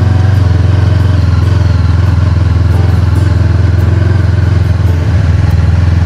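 Honda CB500X's parallel-twin engine running steadily as the motorcycle rides along a gravel road, heard from the rider's position.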